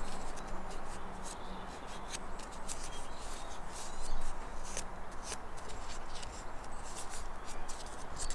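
Paper being folded and handled by hand: light rustles and crinkles, with a louder crinkle about four seconds in.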